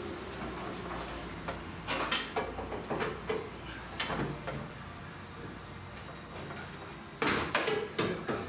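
Scattered metallic clanks and scrapes of hand tools working around the steel fuel tank of a 1977 VW bus, with a louder cluster of knocks near the end, over a low steady hum.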